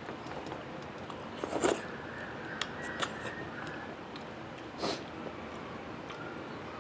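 Close mouth noises of eating rice by hand: chewing and lip smacks, with a few short sharp smacks or clicks, the loudest about a second and a half in and others near three and five seconds, over a steady hiss.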